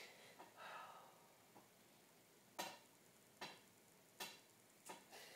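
Near silence: quiet room tone with a soft rustle near the start, then four short, sharp sounds about a second apart.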